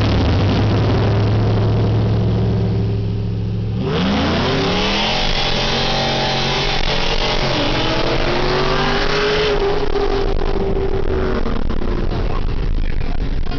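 V8 muscle-car engine heard from inside the cabin, running steadily at low revs, then launching hard about four seconds in. It revs up with rising pitch, drops briefly at a gear shift about three and a half seconds later, climbs again, and lets off the throttle near ten seconds.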